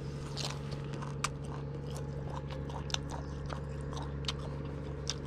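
A person chewing a mouthful of fermented sour pork with its pork skin, rolled in a wild betel leaf, with irregular soft crunching clicks, a few sharper ones. A steady low hum runs underneath.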